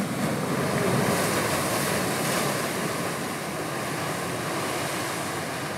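Ocean surf breaking and washing, loudest about a second in, with wind buffeting the microphone.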